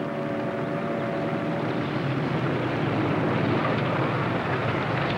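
A car's engine running steadily as the car drives along the road, a constant low rumble with road noise.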